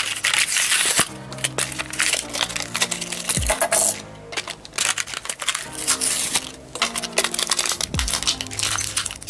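Hot Wheels blister packs being torn open by hand: stiff plastic bubbles crackling and cardboard cards tearing in quick irregular bursts, with background music underneath.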